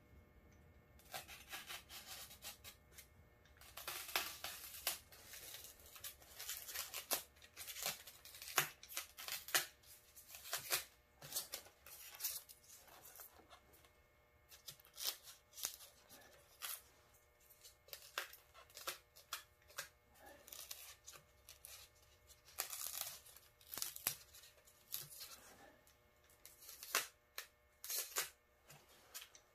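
A blade cutting and scraping away brittle trim by hand in short, irregular strokes, widening a small recess.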